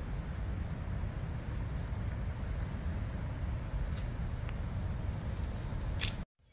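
Wind buffeting the phone's microphone outdoors, a steady low rumbling rush that cuts off suddenly near the end.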